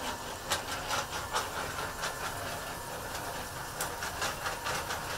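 Soy milk pouring from a plastic hose into a large metal cauldron: a steady hissing, splashing rush of liquid with scattered small clicks.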